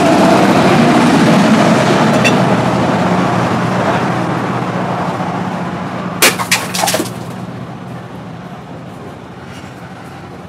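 A hand-forged sword striking and slicing through a plastic water bottle: a quick cluster of about five sharp cracks about six seconds in, lasting under a second. Under it, a steady low engine-like drone that slowly fades.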